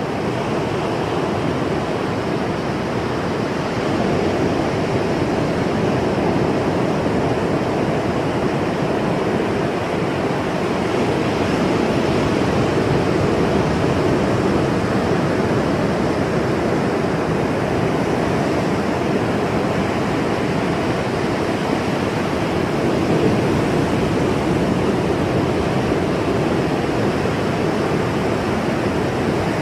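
Ocean waves washing on the shore in a continuous, steady rush of surf, with no distinct breaks between swells.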